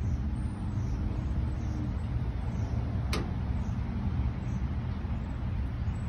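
Steady low outdoor rumble with one sharp click about three seconds in.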